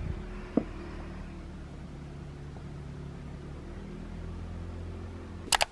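Steady low mechanical hum, with a small click about half a second in and two sharp clicks near the end.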